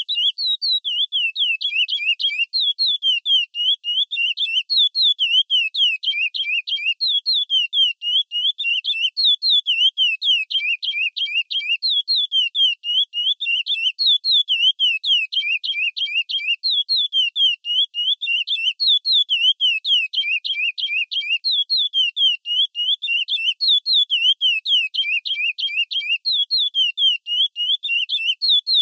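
Curió (chestnut-bellied seed finch) singing the 'praia clássico' song type: an unbroken run of clear whistled phrases made of quick falling notes repeated in series, with no pauses.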